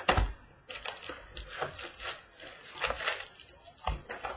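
A cardboard box of trading card packs being opened by hand and the wrapped packs pulled out and handled: a run of rustles, rips and knocks, the loudest right at the start.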